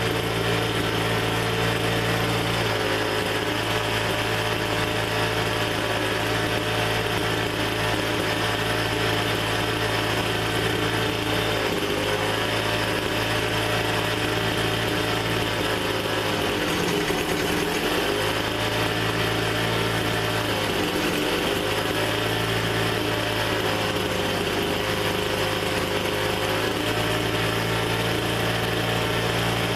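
Two-stroke leaf blower engine running steadily, its speed dipping briefly and picking back up a few times about halfway through as the throttle is worked.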